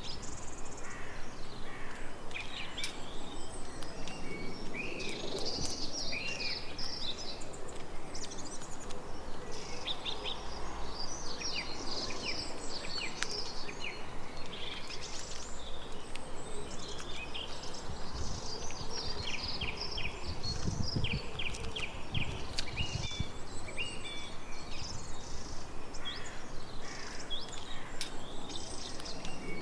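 Several songbirds chirping and trilling at once over a faint steady outdoor hiss.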